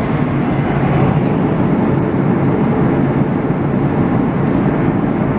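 Steady in-flight cabin noise of a Boeing 737-800: engine and airflow noise heard from a seat inside the cabin, an even low rushing drone.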